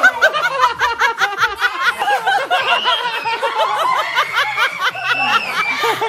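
Young children laughing and giggling in quick repeated bursts, several high voices overlapping.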